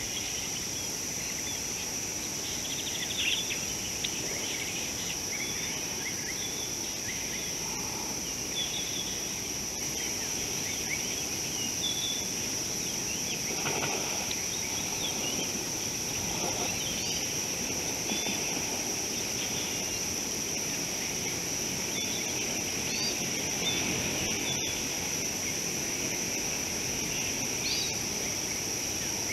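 Outdoor bush ambience: a steady high-pitched insect drone with scattered short bird chirps over a low wash of background noise.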